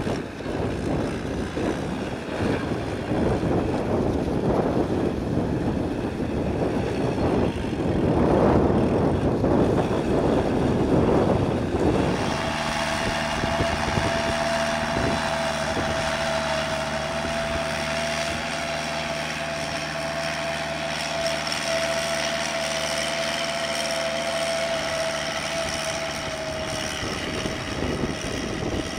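Kubota L5018VN tractor's four-cylinder diesel engine running under load while its rear rotary tiller churns through grass and soil. The sound is rough and noisy at first. From about twelve seconds in it becomes a steadier drone with a constant high whine.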